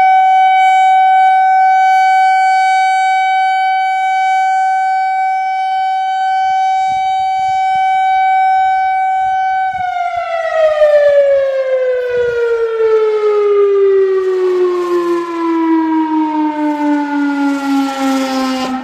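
Whelen outdoor warning (tornado) siren holding a steady tone, then, about ten seconds in, winding down with its pitch falling smoothly and steadily.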